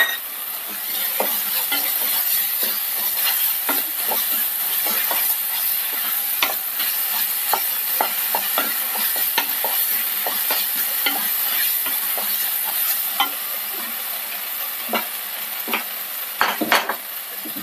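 Wooden spatula stirring and scraping a thick masala paste around a nonstick pan, with a steady sizzle of the paste frying in oil and many irregular scrapes and taps.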